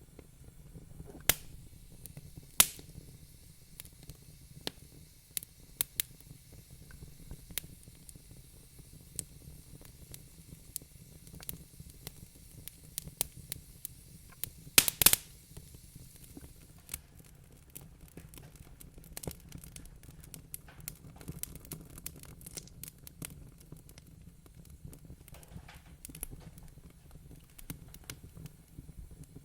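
Wood fire crackling in a fireplace: irregular sharp pops and snaps over a faint low rush, with a cluster of loud pops about halfway through.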